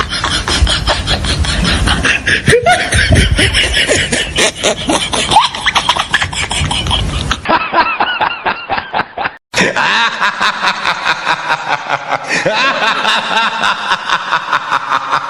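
A run of recorded laughing sound effects played back to back: quick, rhythmic bursts of laughter, switching abruptly to a different, thinner-sounding laugh about halfway through, and to another a few seconds later, with a brief drop-out between them.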